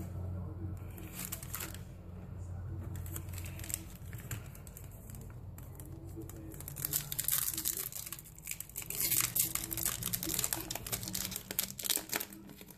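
Yu-Gi-Oh Premium Gold foil booster pack being handled, torn open and emptied by hand, its wrapper crinkling and tearing. The crackling gets loud and dense about halfway through as the pack is opened and the cards are drawn out.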